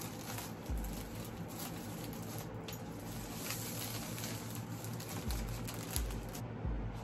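Clear plastic shrink wrap being torn and peeled off a laptop box, crackling and crinkling irregularly, with a few dull low thumps from handling the box.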